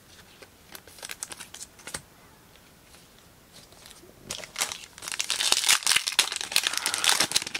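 Faint rustling of cards and a plastic sleeve being handled, then, from about four seconds in, the foil wrapper of a trading-card pack crinkling and tearing loudly as it is ripped open.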